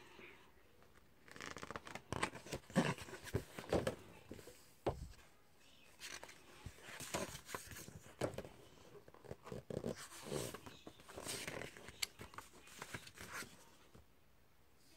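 Pages of a picture book being handled and turned by hand: a run of short paper rustles, slides and scrapes, with a quiet spell at the start and again near the end.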